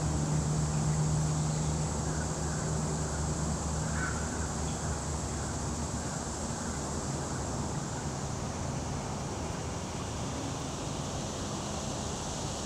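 Steady outdoor background noise with a low hum that fades after the first few seconds; only a faint short sound stands out about four seconds in.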